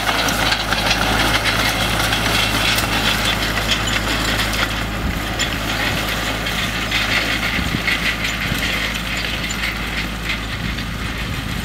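Claas tractor's diesel engine running steadily while it tows a twin-rotor hay rake, with the rake's spinning tines giving a constant light clatter. The sound eases slightly near the end as the outfit moves off.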